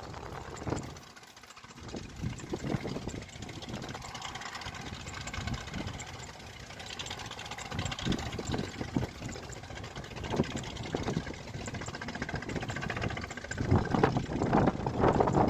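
Heavy mining machinery's diesel engines running, with a louder stretch near the end.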